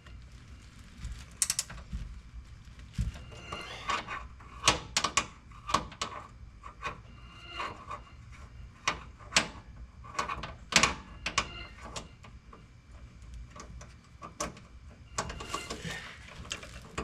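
Wrench work on a bolt: irregular sharp metallic clicks and clanks as the bolt is tightened down.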